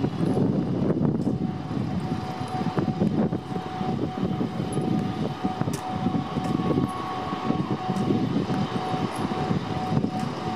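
Passenger train pulling into a station: a heavy, uneven rumble of wheels on the rails. A steady high squeal joins about a second in, and a second, higher tone is added briefly around the middle.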